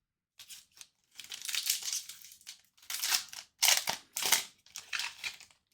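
A trading-card pack wrapper being torn open and crinkled: a run of rustling, crackling bursts, the loudest a little before the four-second mark.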